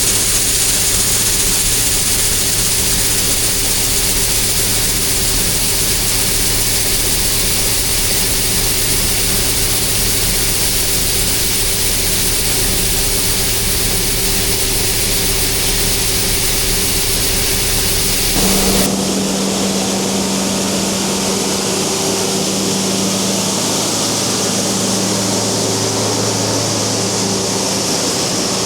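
A combine's diesel engine runs steadily while it unloads shelled corn into a gravity wagon, with a constant hiss over the engine hum. About two-thirds of the way through the sound changes abruptly to a different, steady engine note with less low rumble.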